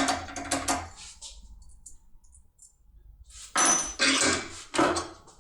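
Small metal parts clinking and rattling as a lockpicking tool and lock are handled: a few short clatters, a pause, then a louder run of clatters about three and a half seconds in.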